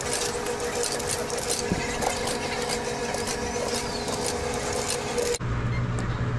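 Quarters being fed one after another into the coin slot of a coin-operated laundromat washer, clattering and clicking through the coin mechanism over a steady hum. About five seconds in the clicking gives way to a low machine hum.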